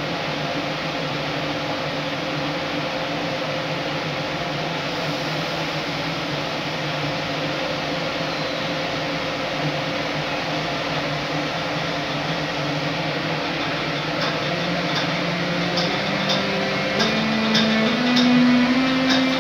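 ÖBB Taurus (class 1116) electric locomotive, first standing with a steady hum of its cooling fans and traction converter. About 14 seconds in it starts off, and the converter's "Tonleiter" begins: a rising scale of distinct tones stepping up in pitch as the train accelerates. Sharp ticks come in over the last few seconds.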